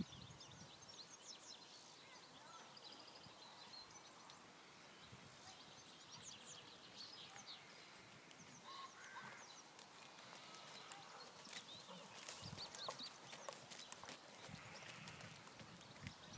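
Faint birdsong, with small high chirps throughout. In the second half come soft, irregular hoof footfalls as a horse moves over the arena's rubber surface.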